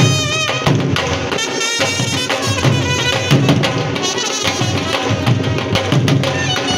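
Dhol barrel drums beating a lively folk dance rhythm, with a high, wavering wind-instrument melody over them.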